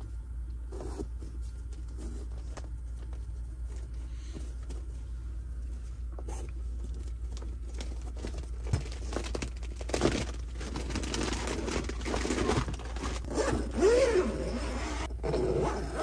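Fabric window curtain in a camper van being handled, rolled up and tied back: rustling and zipper-like scraping strokes that grow busier and louder in the second half, over a steady low rumble.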